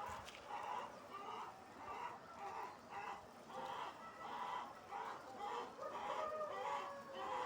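A flock of chickens in a poultry shed, clucking and calling over one another in short repeated calls, with one longer falling call near the end.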